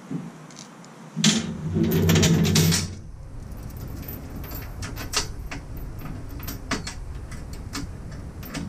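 Steel safety chain links clinking and jingling against the steel tongue of a tow dolly as the chain is handled and positioned for bolting. A louder burst of noise comes about a second in and lasts nearly two seconds, followed by scattered light clinks.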